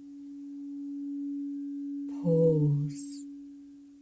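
A single steady, pure sustained tone, like a tuning fork or sine-wave drone for meditation, swelling in over the first second and fading out near the end.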